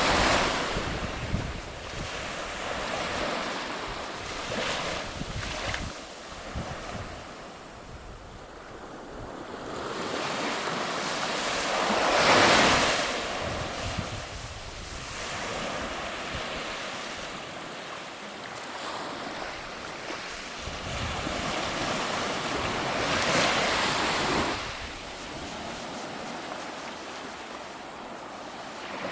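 Surf breaking on a beach: waves rolling in and washing back every several seconds, the biggest about twelve seconds in.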